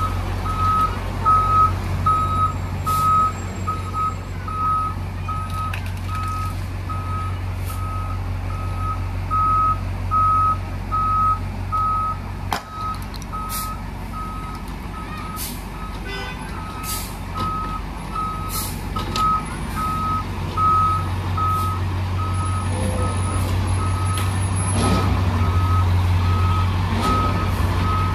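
Fire rescue truck's engine idling with a steady low hum, while an electronic warning beeper repeats one high beep about twice a second, like a reversing alarm.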